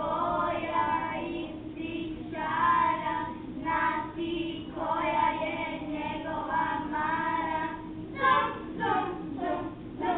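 Children singing a song together, unaccompanied, in long held phrases.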